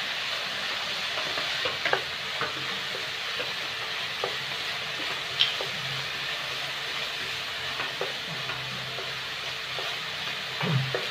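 Diced potatoes and carrots sizzling in oil in a nonstick pan, with a steady frying hiss, while a wooden spatula stirs and scrapes through them, making occasional light clicks against the pan.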